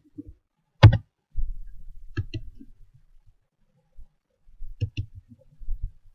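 Computer mouse clicks and keyboard keystrokes: a few scattered sharp clicks, the loudest about a second in and a quick cluster near the end.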